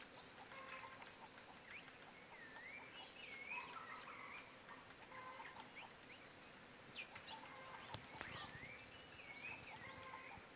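Rufous-bellied thrush (sabiá-laranjeira) singing short, wavering whistled phrases, with a few sharper sweeping calls, the loudest about eight seconds in. Behind it runs a steady high insect drone.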